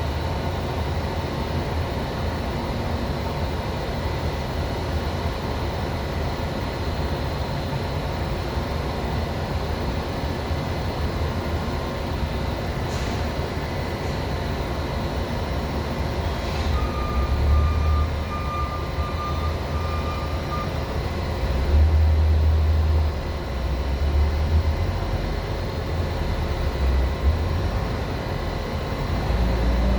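FH680 machining center running: a steady machine hum with several fixed tones over a low rumble, from the spindle the owner suspects of a bad bearing. Louder low rumbles swell and fade several times in the second half, with a brief thin tone in the middle.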